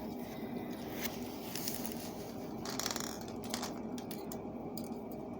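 Wire being wrapped and twisted by hand, giving soft scraping and a few light clicks, over a steady low hum.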